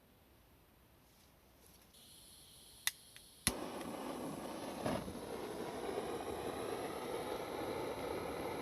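Gas burner torch being lit: a faint gas hiss, then two igniter clicks and a sharp pop about three and a half seconds in as the flame catches. After that the flame burns with a loud, steady rushing noise.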